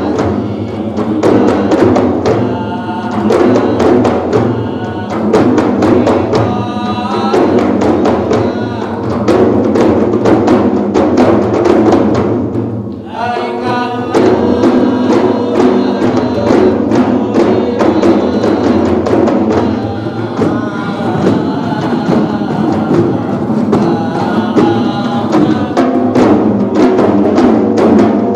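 Several large hand-held frame drums beaten by hand in a fast, steady rhythm, with men's voices chanting over them. The playing eases briefly about halfway through, then picks up again.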